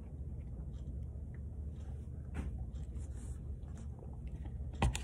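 Steady low room hum with faint rustles and small clicks. A single sharp tap comes a little before the end.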